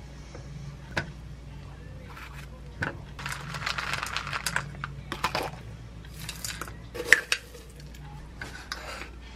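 Chopped nuts poured from a plastic container, rattling into a ceramic bowl of strawberries for a couple of seconds, with sharp clinks of the bowl and containers being handled, the loudest about seven seconds in. Granola is tipped in from a glass jar near the end.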